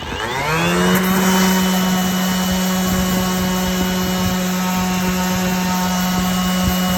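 Metabo HPT cordless random orbital sander switched on: its motor winds up in pitch over about the first second, then runs at a steady hum.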